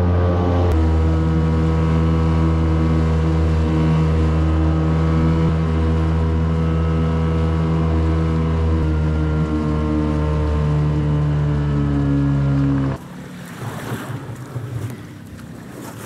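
Small outboard motor running steadily at speed, driving a small boat. About thirteen seconds in, it gives way abruptly to wind and splashing water.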